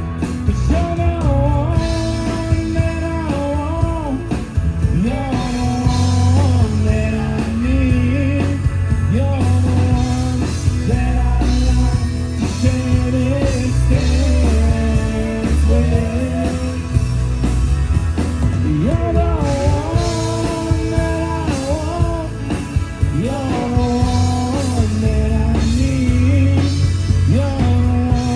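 Live rock band playing, with a melodic lead line that bends and glides over a steady bass and drums.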